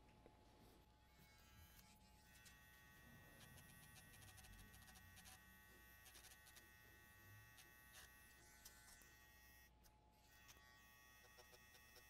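Faint, steady buzz of a small battery-operated grinding pen grinding the traces of a circuit board to expose bare copper for pad repair, with a short break near the end.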